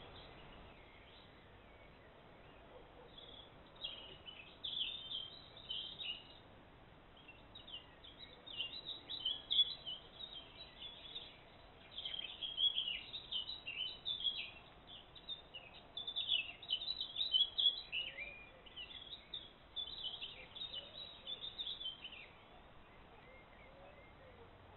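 A songbird singing quick, high notes in phrases of a few seconds each, starting about four seconds in and stopping a couple of seconds before the end, over a faint steady hiss.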